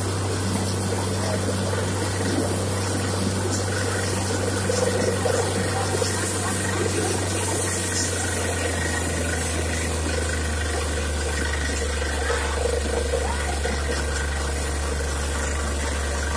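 Truck-mounted borewell drilling rig running, a steady deep drone, with water splashing and spraying as it is blown up out of the borehole: water has been struck in the bore.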